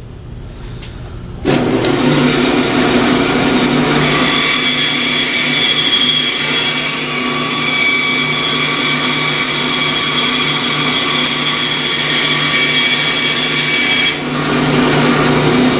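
Band saw running, then cutting a curve through a wooden board: the quieter motor and blade hum gives way about a second and a half in to a loud, steady cutting sound as the blade bites into the wood. The highest part of the sound drops away near the end as the cut comes through.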